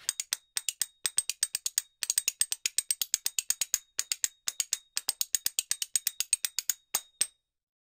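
Rapid, evenly paced high ticking clicks, about seven a second, in short runs with brief gaps, like a ratchet or clock-tick percussion laid over the pictures. They stop abruptly near the end.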